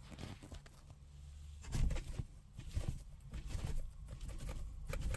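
Kittens moving about, with small irregular pattering taps and scratches and a louder thump about two seconds in.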